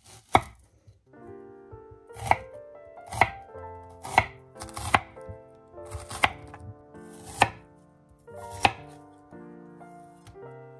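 A chef's knife cutting through an onion onto a wooden cutting board, with about eight sharp strikes, roughly one a second after the first. Soft background music plays underneath.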